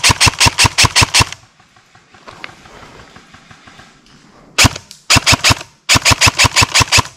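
Airsoft rifle firing strings of fast, evenly spaced shots, about seven a second. One string stops about a second and a half in. After a pause comes a single shot, then two more strings near the end.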